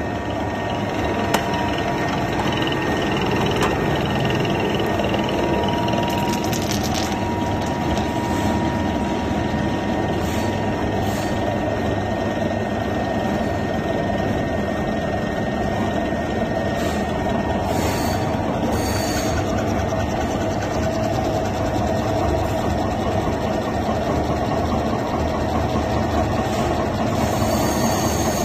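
Commercial mashed potato machine running steadily, grinding potatoes and forcing the mash out through its perforated outlet plate.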